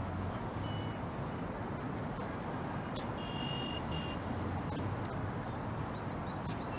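Steady street-traffic rumble with several short high beeps scattered through it, and a few faint high chirps near the end.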